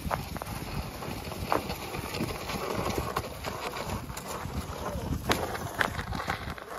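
Draft horse's hooves clopping as it walks, with scattered knocks.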